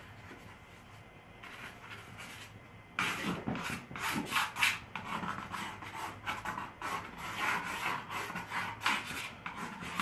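A paintbrush rubbing oil paint across a canvas: quiet at first, then a run of quick, irregular strokes starting about three seconds in.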